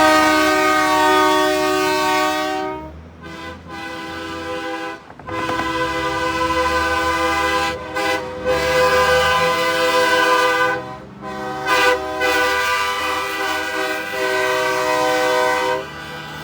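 Train horns fitted to semi trucks blowing a funeral salute: a chord of several notes sounded in long blasts with short toots between them, cut off near the end.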